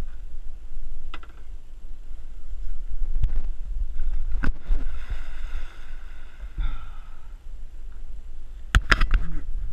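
Low wind rumble on the camera microphone while a hooked fish is fought beside the boat. Several sharp knocks and splashes break through, the loudest cluster about nine seconds in, as the fish thrashes at the surface.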